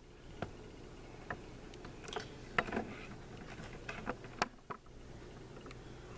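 Irregular light clicks and knocks, a dozen or so, the sharpest about two and a half and four and a half seconds in, over a steady low hum.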